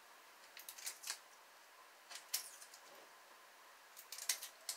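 Dry onion skin crackling and tearing in a few short bursts as an onion is peeled with a small knife.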